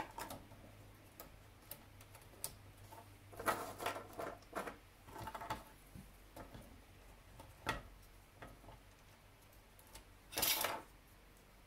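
Wooden clothespins clicking and tapping as they are handled on a chicken-wire wreath frame. The taps are scattered and irregular, with a busier cluster partway through and one louder clatter near the end.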